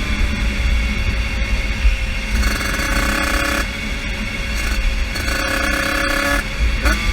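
50cc motorbike engine running hard. Its high engine note strengthens twice for about a second each, over a steady low rumble.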